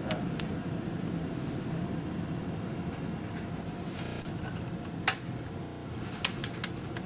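Sharp plastic clicks from a laptop's optical drive tray as a CD is seated on it and handled, one loud click about five seconds in and three lighter ones a second later, over a steady room hum.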